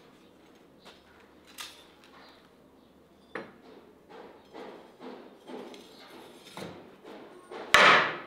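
Household clatter: a few light knocks, then a run of soft thuds about twice a second, and one loud bang near the end.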